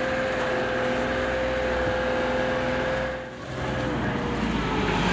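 SHERP N amphibious ATV's turbocharged 1.8-litre three-cylinder diesel engine running steadily under way, with a steady drone. The sound dips briefly about three seconds in, then builds again.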